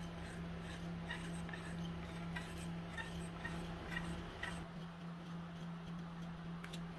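Light ticking and scraping of a small metal modelling tool smoothing the clay surface of a hand-sculpted chicken figure, a soft tick about every half second that stops after about four and a half seconds, over a steady low hum.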